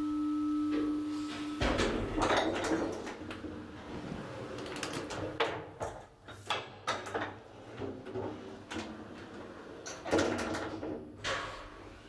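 Elevator at work: a steady hum stops about a second and a half in, then the doors rattle and clatter with sharp clicks, with a louder clatter near the end.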